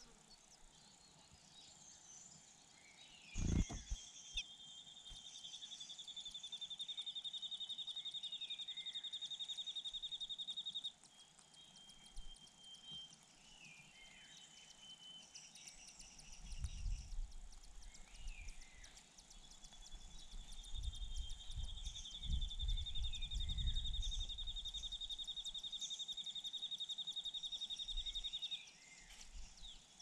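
Outdoor nature ambience: a high, rapidly pulsing trill held for about seven seconds, twice, with short falling chirps scattered between. A sharp thud comes a few seconds in, and low rustling runs through the middle.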